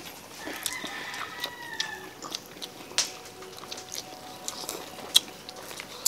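People eating fried pork ribs with their hands: chewing, lip smacks and short sharp clicks, the sharpest about three and five seconds in. A rooster crows once, a single drawn-out call starting about half a second in and lasting under two seconds.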